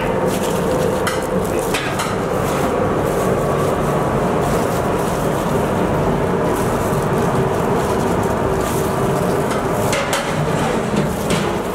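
Steady roar of a commercial kitchen's gas range and extraction, with a few clinks of a spoon against the pots near the start and near the end.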